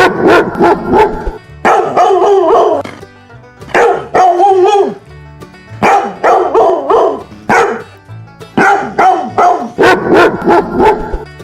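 A dog barking in about five runs of several quick barks each, with short pauses between the runs.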